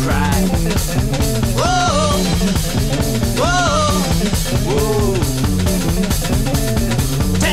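Blues-rock band recording with drums and guitar keeping a steady driving beat, and sliding melodic phrases that come back about every one and a half seconds.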